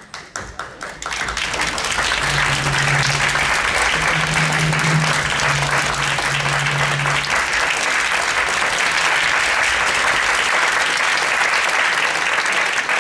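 Audience applauding: scattered claps swelling into steady, full applause within the first two seconds and holding there.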